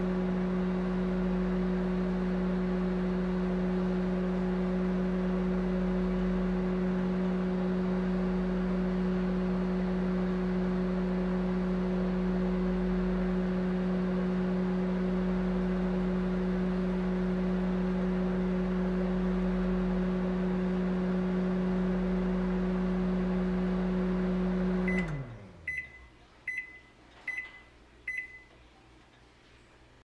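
Microwave oven running with a steady hum; near the end it shuts off, the hum winding down in pitch, and then the oven gives a run of short high-pitched beeps, about one every 0.8 seconds, marking the end of the cooking cycle.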